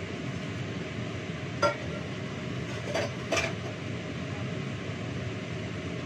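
Stainless steel bowl and utensils clinking on a kitchen counter as food is dished up: three sharp metallic clinks, one about a second and a half in and two close together around three seconds, over a steady low hum.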